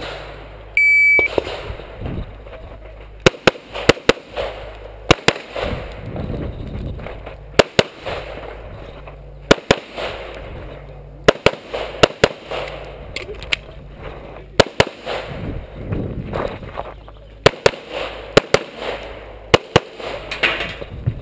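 Electronic shot-timer start beep about a second in, then a handgun firing at targets, mostly in quick pairs (double taps). The pairs are separated by gaps of shuffling movement noise.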